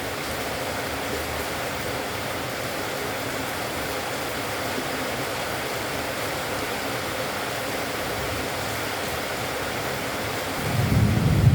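Steady rushing noise of heavy rain, with a low rumble of thunder building about ten seconds in.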